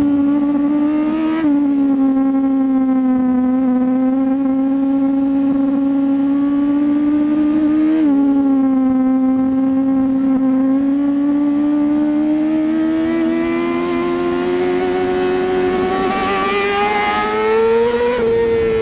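Kawasaki ZX-6R 636 cc inline-four race bike's engine heard onboard at speed, with wind rush. The engine note holds steady through long bends, drops sharply about a second and a half in, again about eight seconds in and near the end as the bike shifts up, and climbs steadily in between as it accelerates.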